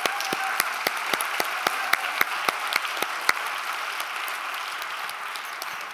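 Audience applauding, with many separate claps standing out, easing off slightly near the end.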